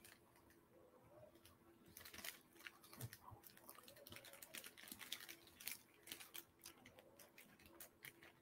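Near silence, with faint, irregular clicking and crackling that thickens about two seconds in.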